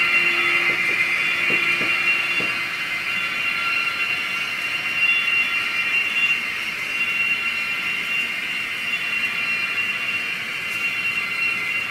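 N-scale model freight train rolling past: a steady high whir from the model locomotive's motor and the wagons' wheels running on the track, with a fainter low hum that stops about two seconds in.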